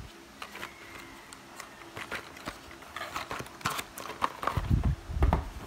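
Cardboard tattoo needle cartridge box handled in gloved hands: scattered light taps and clicks of the card and its opening flap, with a couple of duller thumps about five seconds in.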